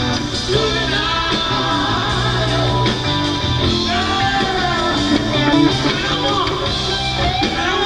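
Live rock band playing with singing: drums, bass and electric guitar under a voice.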